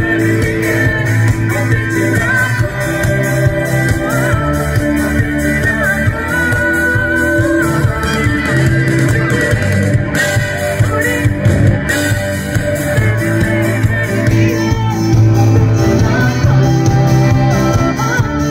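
Live band playing a song, with several vocalists singing together over drums, bass and guitar.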